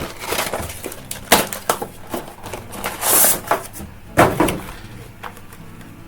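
Action figure packaging of cardboard and plastic being opened by hand: a run of sharp cracks and clicks, with a rustling tear about three seconds in and a loud crack just after four seconds.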